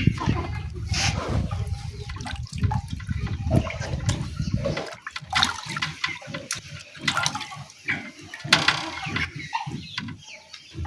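Water sloshing and splashing as a papaya is washed by hand in a basin of water, with scattered splashes and knocks; the steady rush of water thins out about halfway through.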